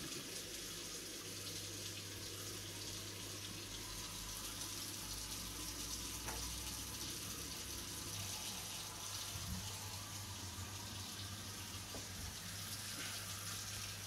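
Steady rush of running water, with a low even hum coming in about a second in, as the Baxi combi boiler is tested to see whether it fires now that its hot-water flow-switch microswitch has been cleaned.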